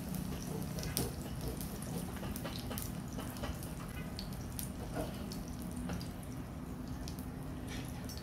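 Eggs frying in a pan with a little water added to steam them: a steady sizzle with scattered pops and crackles.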